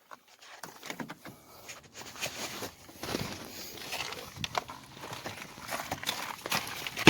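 Handling noise from a car's interior door panel: scattered plastic clicks and rustles as components are pulled off it by hand.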